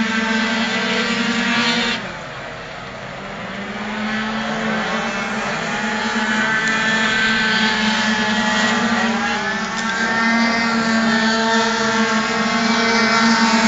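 Several tuned two-stroke racing scooters running hard around a track, their overlapping engine notes rising and falling as they brake and accelerate through the corners. The sound drops suddenly about two seconds in, then builds again as the pack comes closer.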